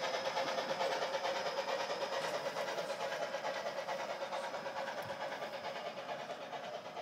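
Sound decoder in an HO-scale model steam locomotive playing rapid exhaust chuffs, about five a second, through its small onboard speaker, fading as the train moves away, with model freight cars rolling along the track.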